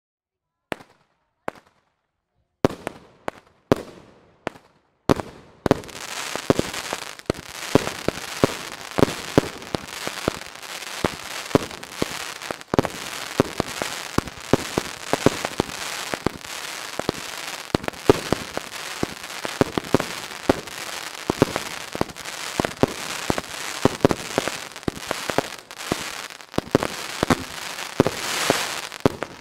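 Fireworks going off: a few separate bangs at first, then from about six seconds in a dense barrage of rapid pops and bangs over a steady hiss, swelling near the end.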